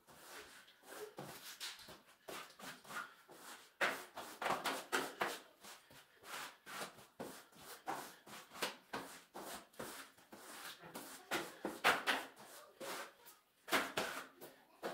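Rubber floor squeegee pushed and dragged over wet ceramic floor tiles, drawing the water off: a run of irregular short scrapes and knocks.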